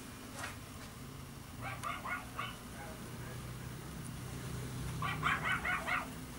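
A small dog yapping in quick runs of about five high barks, once about two seconds in and again near the end, over a low steady hum.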